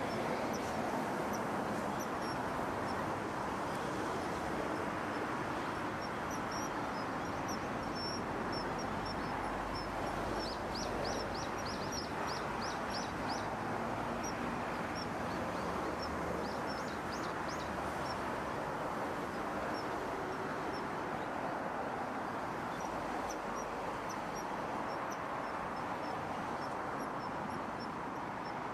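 Steady rush of river water with the short, high, thin calls of a common kingfisher scattered through it. The calls come as a quick run of about ten notes about ten seconds in, and a shorter run of about four near seventeen seconds.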